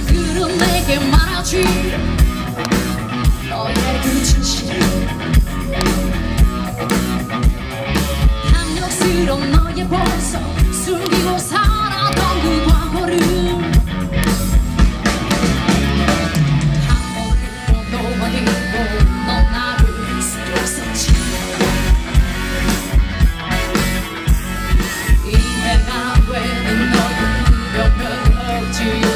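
Live rock band: a woman singing lead over electric guitar, bass and a drum kit, with a steady beat throughout.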